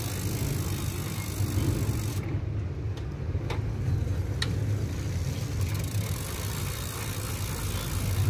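Mountain bike being ridden: a steady low rumble of the tyres and 7-speed rear drivetrain, with a couple of sharp clicks near the middle.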